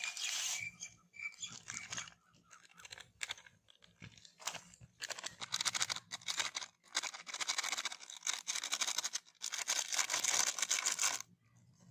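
Small plastic spice sachets crinkling and being torn open, in repeated bursts of crackly rustling, loudest near the end.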